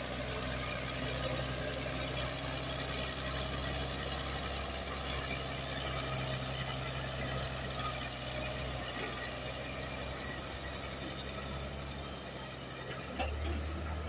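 Caterpillar D6D bulldozer's six-cylinder diesel engine running steadily under load as the blade pushes wet clay. It grows a little fainter near the end, where a couple of short knocks are heard.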